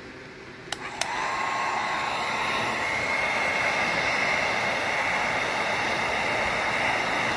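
Wagner heat gun: two clicks about a second in, then its fan blowing steadily with a faint high whine.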